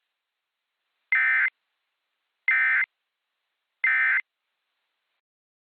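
Emergency Alert System end-of-message signal: three short bursts of buzzy digital SAME data, each under half a second and spaced about a second and a half apart, marking the close of the alert.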